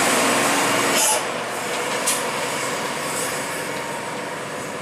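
Diesel engine of a loaded Hino truck running as it passes close by, then falling away about a second in as the truck moves off. Two short hisses sound about one and two seconds in.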